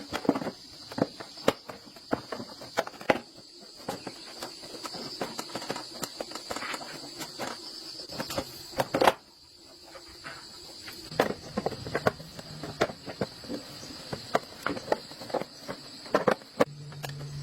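Irregular sharp clicks and taps, like small hand work on metal parts, over a steady high-pitched insect-like trill. A louder knock comes about nine seconds in.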